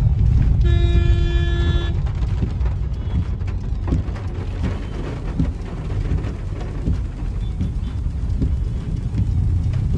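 Heavy rain drumming on a car's roof and windows, heard from inside the car, with a deep rumble underneath. A horn sounds as one steady tone for about a second near the start.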